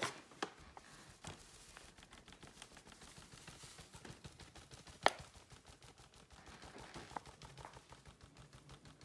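Flour being poured from a paper flour bag into a stainless steel mixing bowl: faint rapid ticking and rustling throughout, with one sharp tap about five seconds in and a few lighter taps near the end.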